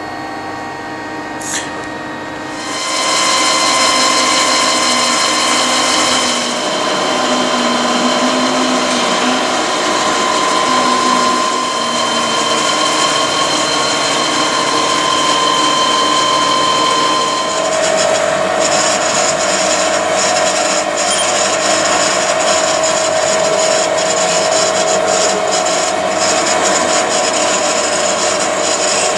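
Haas TL1 CNC lathe running under power: a steady machine whine over a noisy hum. It gets louder about three seconds in, and about two-thirds of the way through the main whine steps down to a lower steady pitch.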